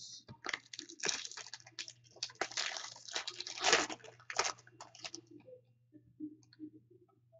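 Crinkling and rustling of a 2015 Topps Chrome baseball card pack being opened by hand: a dense run of crackles that thins out about five seconds in to a few soft rustles.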